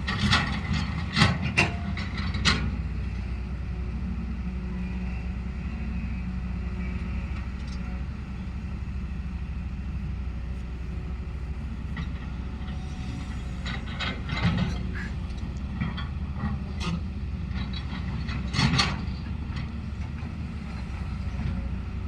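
A vehicle's engine running with a steady low drone, with clusters of rattling knocks at the start, about two-thirds of the way through, and again a little later.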